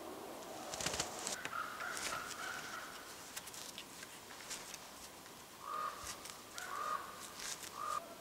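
A bird calling in short, clipped notes, a run of them about a second in and another group near the end. Light clicks and scrapes of wire squirrel snares being handled and fixed onto a spruce pole with gloved hands come in between.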